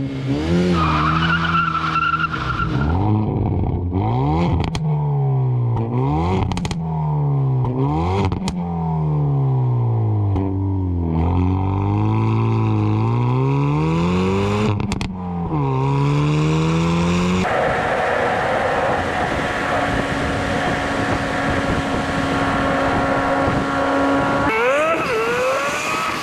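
Hyundai Veloster N's turbocharged four-cylinder engine revving, its pitch climbing and dropping again and again, then holding steady for several seconds before climbing once more near the end.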